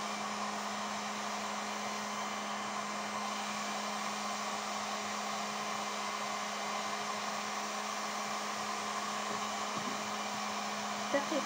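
Electric heat gun running steadily, its fan blowing with an even hum and hiss, as used to soften isolon foam petals for shaping.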